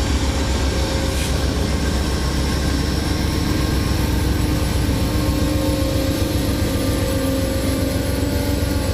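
Amtrak passenger train rolling slowly past at a station: a steady low diesel rumble with a held hum from the trailing GE P42DC locomotive, as the bilevel Superliner cars follow it by.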